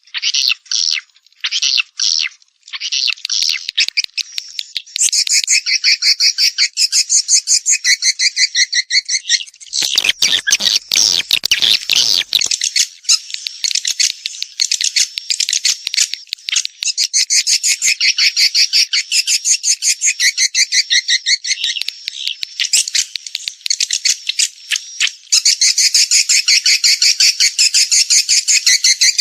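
Recorded edible-nest swiftlet calls, the 'birahi' (breeding) lure call: dense, overlapping trains of rapid buzzy chirps and clicks. From about ten to twelve seconds in, a harsher, fuller rattle cuts across them.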